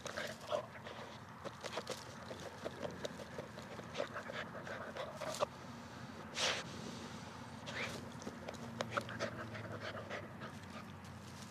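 A Jack Russell terrier panting hard, with many short scratchy clicks and a sharp breathy huff about six and a half seconds in.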